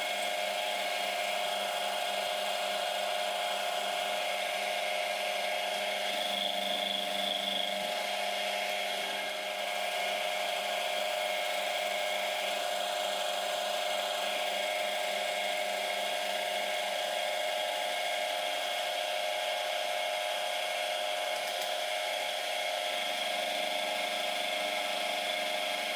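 Manual milling machine running steadily with its end mill cutting a flat into a 4140 steel bar under coolant, a continuous hum of several high steady tones.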